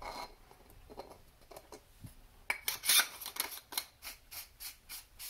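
Metal lightsaber hilt sections being screwed together by hand. Soft handling noise at first, then from about halfway a regular run of quick scraping clicks, about five a second, as the threads turn.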